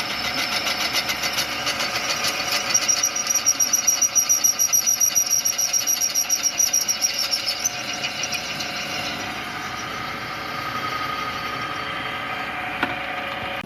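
Metal lathe running while it works a brake caliper pin, with a high-pitched whine and fast chatter that stop about three quarters of the way through, leaving steadier machine running.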